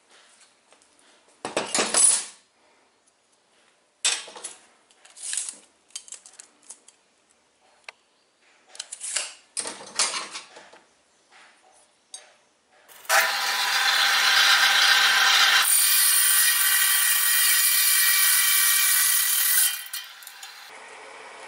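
A steel rod clinks and taps against pliers and the metal workbench a few times. About thirteen seconds in, an abrasive chop saw starts up and runs, then cuts through the steel rod with a bright hiss for about four seconds, and falls quieter as the motor winds down near the end.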